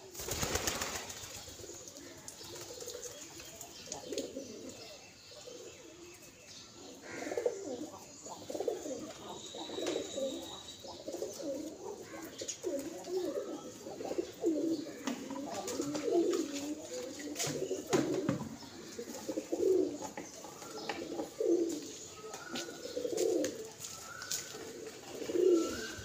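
Rock pigeons cooing over and over in low, repeated phrases, with a brief clatter of wings at the start as one pigeon takes off.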